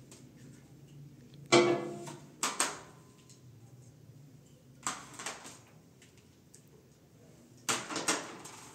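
Large round steel serving tray set down on a counter with a loud ringing clang about a second and a half in, then plates clinking onto the metal tray in three shorter rounds.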